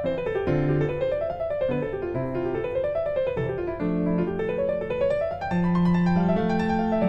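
Background music: a piano playing flowing runs of notes that rise and fall over sustained bass notes.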